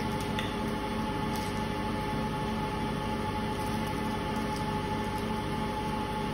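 Steady mechanical hum with a faint constant high tone, background machine noise with no speech. A few faint clicks are heard about half a second and a second and a half in.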